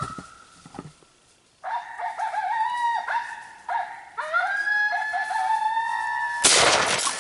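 Coyote duet howling played from an electronic predator caller: two voices holding long howls that bend in pitch. A single loud shotgun blast comes about six and a half seconds in.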